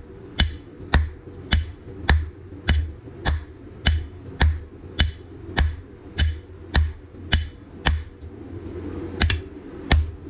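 Hammer blows on hot 4140 steel over an anvil, an even rhythm of a little under two strikes a second, with a steady hum behind. The rhythm stops about eight seconds in, and two more blows follow near the end.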